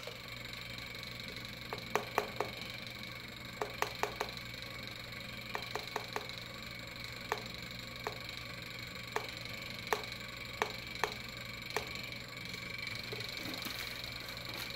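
Light, irregular tapping on a plastic reagent bottle to shake tryptone powder out onto a weigh boat, about twenty sharp clicks spread over ten seconds that stop near the end, over a steady hum.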